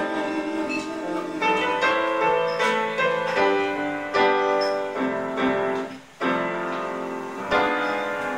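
Electric piano playing chords and a melody line as a song's instrumental ending, with a short break about six seconds in before it carries on.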